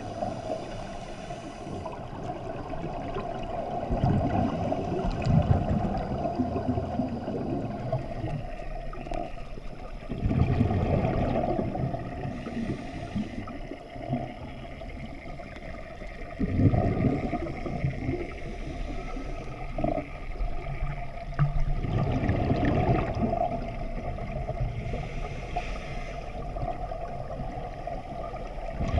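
Scuba diver breathing underwater through a regulator: rumbling bursts of exhaled bubbles come about every six seconds, over a steady watery background.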